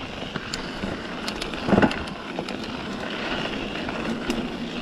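Mountain bike rolling over a dirt and gravel trail: steady crunch and hiss of tyres on loose ground with scattered clicks and rattles, and one brief louder burst a little under two seconds in.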